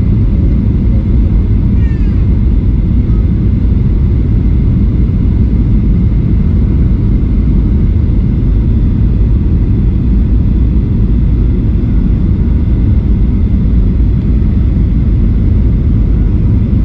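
Jet airliner cabin noise during the approach with flaps extended: a loud, steady low rumble of engines and airflow, with a faint steady high whine over it.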